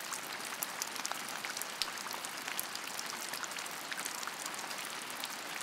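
Heavy rain striking a car's roof and windows, heard from inside the car: a steady hiss dotted with many small sharp ticks of individual drops.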